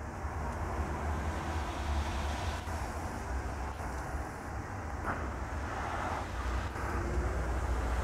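A vehicle driving slowly on a snow-covered road, a steady low rumble of engine and tyres on snow.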